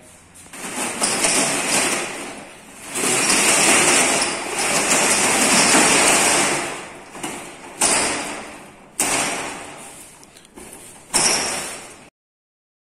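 Steel roller shutter door rattling as it is pulled down, followed by three sudden bangs in the second half, each dying away. The sound cuts off abruptly near the end.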